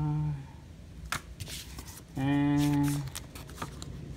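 Glossy paper brochures and cards being handled and shuffled, with light rustles and clicks. A steady, unwavering pitched tone sounds twice, just under a second each time: once at the very start and louder about two seconds in.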